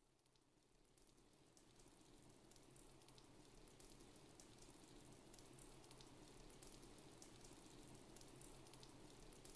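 Faint crackling hiss with scattered clicks over a low hum, slowly growing louder.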